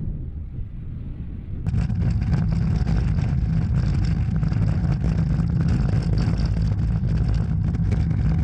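Tracked Tor air-defence vehicle on the move: at first its engine is heard faintly from a distance, then from about two seconds in it is heard from on board, a loud, steady engine rumble with the noise of its running gear.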